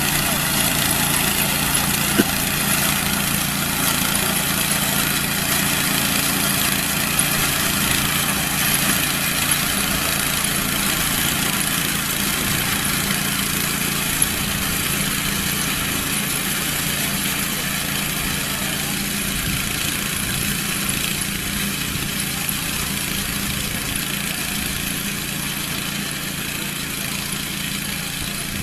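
Farm machine's engine running steadily, with a steady low hum and a few faint clicks.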